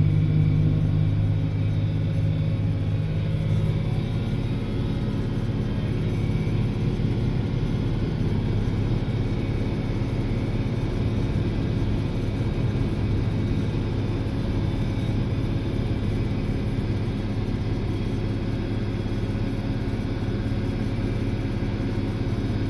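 John Deere 4055 tractor's six-cylinder diesel running steadily under load, together with the drone of the PTO-driven New Holland forage chopper picking up and chopping wheat straw, heard from inside the tractor cab. It is slightly louder for the first few seconds, then even.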